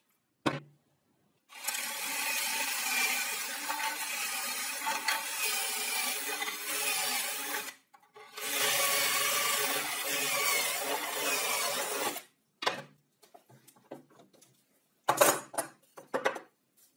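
Power drill boring two pocket holes into a wooden block through a pocket hole jig: the motor runs with the bit cutting wood for about six seconds, stops briefly, then runs about four seconds more. A few short knocks and scrapes of the wood block on the board follow near the end.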